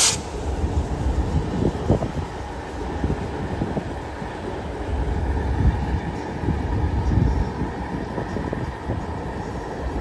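Alco C420 diesel-electric locomotive passing close by with its engine running, together with the steady rumble and clatter of steel wheels on the rails under loaded hopper cars.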